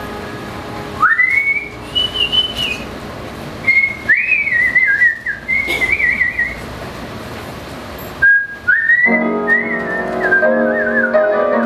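A woman whistling a melody into a microphone, in phrases that slide up into held notes and break into wavering trills. About nine seconds in, the band comes in with held chords beneath the whistling.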